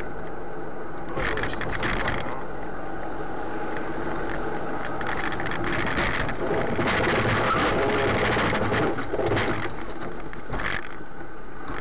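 A car driving on a snowy, icy road, heard from inside the car: steady road and engine noise with frequent small clicks and rattles.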